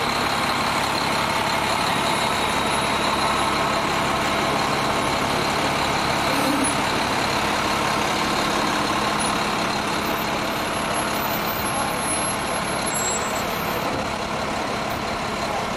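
Steady, loud drone of heavy truck engines running at idle, with a constant hiss over it.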